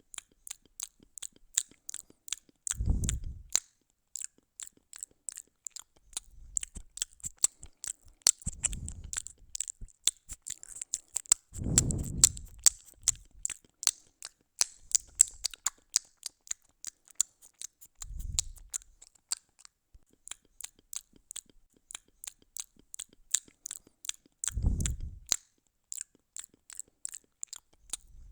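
A cat chewing and crunching its food in quick, irregular clicks, with a dull low thump every few seconds.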